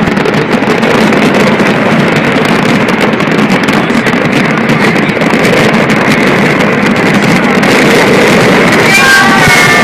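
Loud steady rumble of a boat under way, with wind on the microphone. About nine seconds in, a short pitched sound with several overtones comes in and falls slightly.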